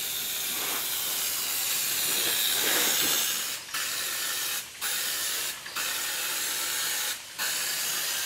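Aerosol rattle can spraying automotive base coat paint: a steady hiss in long passes, broken by four short pauses in the second half as the trigger is let off between strokes.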